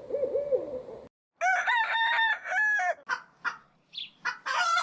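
A few repeated hoot-like notes, cutting off about a second in, then a rooster crowing in one long call, followed by short clucks and chirps.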